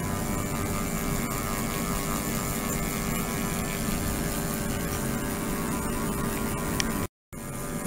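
Steady hum and hiss of an ultrasonic system running in a water-filled plastic tank, with several steady tones in it. The sound drops out completely for a moment near the end.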